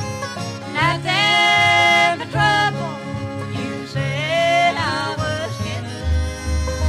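Bluegrass band playing an instrumental passage: fiddle leads with long held notes that slide into pitch, over banjo, guitar and string bass.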